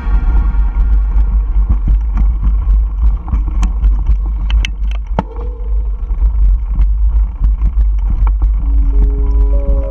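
Mountain bike riding a dirt trail: heavy, steady wind rumble on the action-camera microphone, with tyres crunching over loose gravel and frequent sharp clicks and rattles from the bike.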